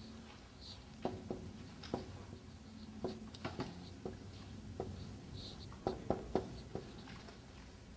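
Dry-erase marker writing on a whiteboard: irregular sharp taps as the tip strikes the board, with a couple of brief squeaks of the tip dragging.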